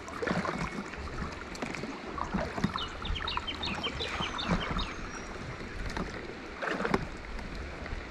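Water and hull noise of a drifting raft on a river, with scattered light knocks. A bird gives a quick run of short, high chirps about three seconds in.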